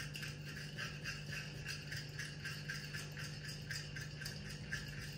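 Metal spoon stirring wet batter in a glass bowl, scraping and clicking against the glass in a quick, even rhythm of several strokes a second, over a steady low hum.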